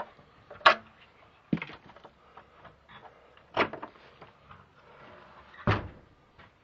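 An old wooden door being pushed and worked open, banging and scraping in four sharp knocks spread a second or two apart, the last one heavier.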